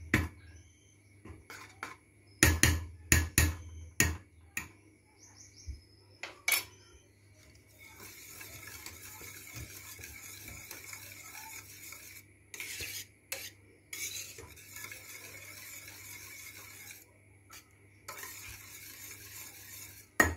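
Wire whisk stirring thick, hot pudding cream in a stainless steel pot, a steady scraping swish in stretches from about eight seconds in, with short breaks. It is preceded by a few sharp metallic knocks against the pot in the first four seconds. This is margarine being whisked into the hot cream until it melts.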